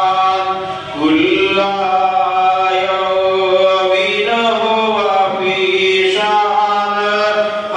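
A man's voice chanting solo into a microphone in long, drawn-out melodic phrases with slow rises and falls in pitch, pausing briefly for breath about a second in.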